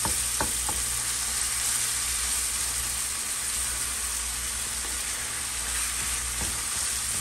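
Ground pork sausage sizzling steadily in a nonstick frying pan as a wooden spatula stirs it, with a few light knocks of the spatula in the first second and one more near the end.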